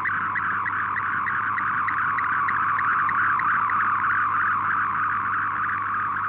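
MFSK128 digital image transmission received off shortwave: a dense, steady band of data tones pulsing about five times a second while a picture is being decoded.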